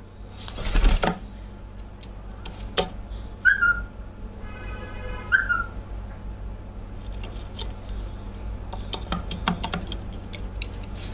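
A pet rose-ringed (ring-necked) parakeet giving two short whistled chirps a couple of seconds apart, with a held buzzy note between them. A brief rustling noise comes near the start, and scattered light clicks and taps follow in the second half.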